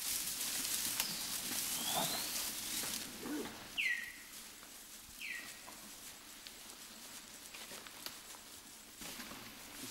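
Rustling and light footsteps through tall grass for the first few seconds. Then a bird calls twice: two short whistles that slide down in pitch, about a second and a half apart, over quiet forest ambience.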